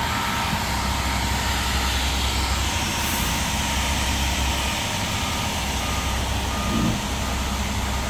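Ready-mix concrete mixer truck's diesel engine running steadily during the pour, with a backup alarm beeping over it, roughly three beeps every two seconds.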